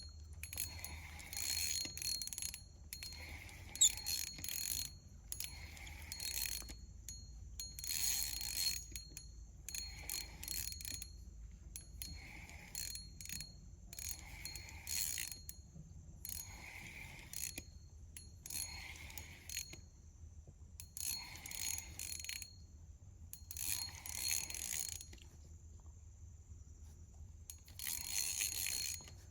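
Fishing reel ticking and whirring in short spurts, about one every second or two with a brief pause near the end, as a big giant freshwater prawn is played on the line.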